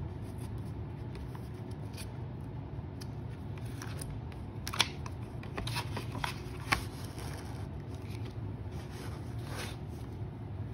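Sheets of paper being handled and shifted on a desk: a few brief scattered rustles and taps over a steady low hum.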